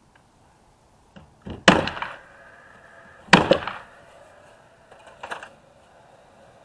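Framing nail gun firing twice, about a second and a half apart, driving nails through OSB sheathing into the wall framing; each shot is a sharp crack with a short ring after it. A softer knock follows about five seconds in.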